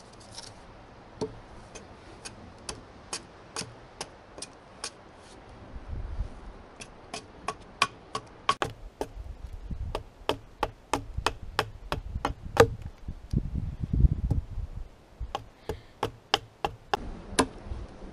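Short axe chopping a green aspen branch laid across a log, a string of sharp wooden strikes. They come about two a second at first, then, after a short pause, faster and louder through the second half.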